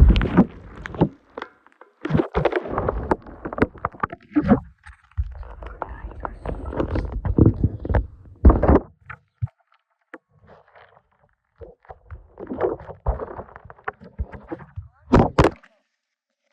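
Irregular handling noises close to the microphone: thumps, knocks and rustling in uneven bursts, with a sharp double knock near the end.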